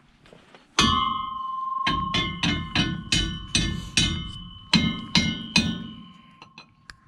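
Hammer blows on a stuck driveshaft: more than a dozen sharp strikes, about two or three a second, each leaving the steel ringing. The blows are failing to knock it loose.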